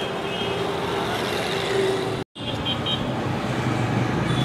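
Street traffic noise, steady and moderately loud, with motor vehicles passing on the road. The sound cuts out for a moment about two seconds in.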